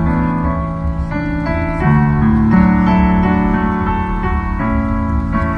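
Music led by sustained keyboard chords that change about every second, over a steady low rumble.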